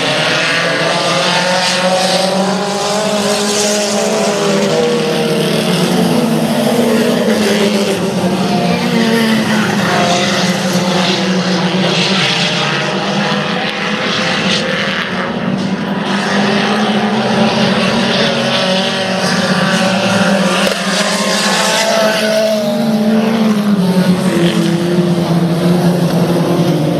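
A pack of junior sedan race cars at racing speed. Several engines rev up and ease off in turn, their pitches overlapping and repeatedly rising and falling as the cars go round the oval.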